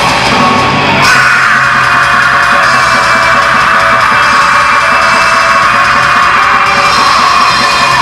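Live heavy metal band playing loud on electric guitars and drums, with the vocalist holding one long scream from about a second in that slowly sinks in pitch.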